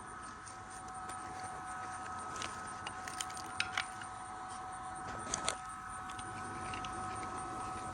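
Stick (arc) welding on a hydraulic cylinder eye: a steady crackling hiss from the arc with a few sharp pops around the middle, over a steady electrical whine.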